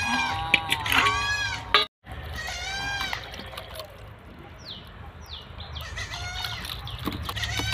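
Farm animals calling again and again with arching, wavering cries, over the splash and slosh of hands washing chicken pieces in a basin of water. The sound cuts out briefly about two seconds in, and a few short falling chirps come around five seconds.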